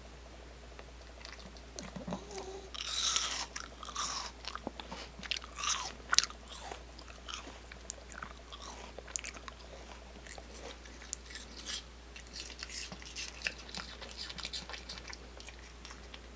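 A dog biting and chewing apple pieces in a run of irregular crunches. The loudest bites come in the first half, and lighter, scattered chewing follows.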